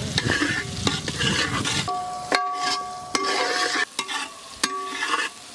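Chopped vegetables sizzling in oil in a large metal pan while a metal spatula stirs and scrapes across the pan's bottom. The sizzle drops about two seconds in, leaving separate scrapes of the spatula and a faint steady ringing tone.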